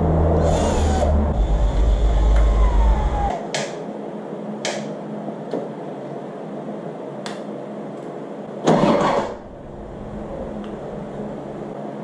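Clicks and light knocks of parts being fitted together on a Harley's right-hand handlebar controls, over a low hum that cuts off suddenly about three seconds in. A louder scraping sound comes about nine seconds in.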